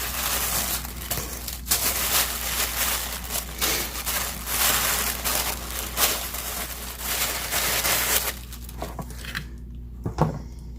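Plastic and paper packaging of a card-making kit crinkling and rustling as it is handled and unpacked, dying down near the end, with one sharp tap shortly after.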